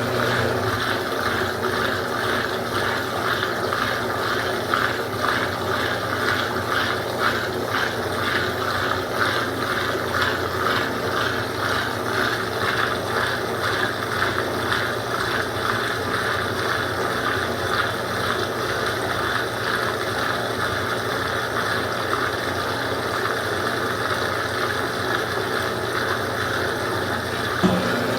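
Consul Supercargo 8 kg (CWL08C) washing machine running through its cycle: a steady mechanical whir with a fast, even rhythmic swish, clearest in the first half.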